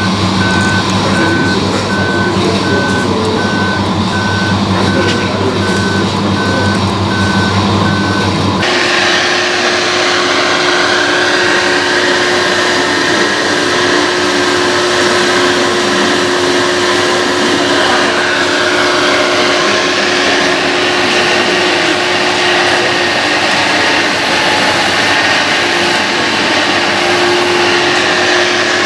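Reversing beeper on a radio-controlled model truck, evenly spaced beeps on one pitch over a low truck engine hum. About nine seconds in both cut off suddenly, and a steady hum with a constant tone takes over.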